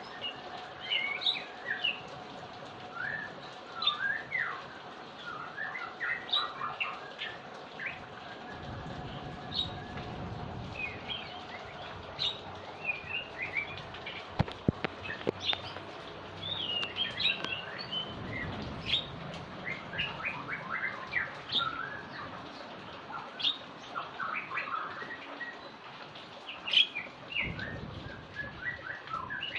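Small birds chirping in quick, repeated calls over the steady hiss of heavy rain, with a few low rumbles.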